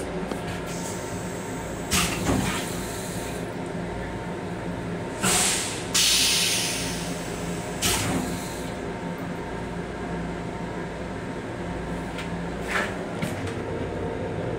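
Steady rumble of a Long Island Rail Road M7 electric railcar, with scattered knocks and rattles and a loud hiss that starts about five seconds in and fades out over about three seconds.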